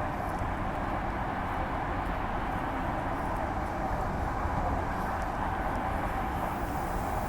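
Interior running noise of a Walkers Limited A-series electric multiple unit, heard from inside the carriage: a steady rumble with a constant hum running along the track.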